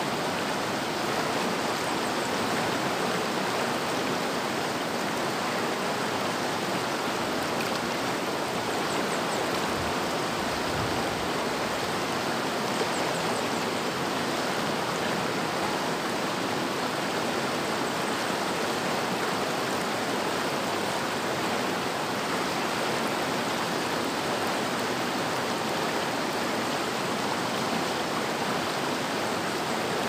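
Mountain river flowing: a steady, even rush of water with no breaks or changes.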